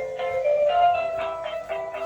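Electronic tune from a battery-powered octopus baby toy: a simple melody of steady notes stepping up and down in pitch.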